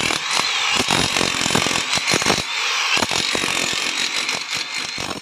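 iBell DH10-78 electric demolition hammer chiselling into a plastered brick wall: a loud, rapid, continuous hammering of the chisel bit.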